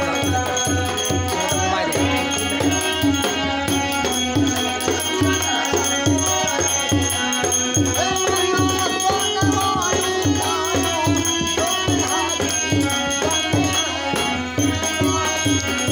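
Devi geet pachra, a devotional folk song played on a steady drum beat with jangling rattle-like percussion and a melody over it.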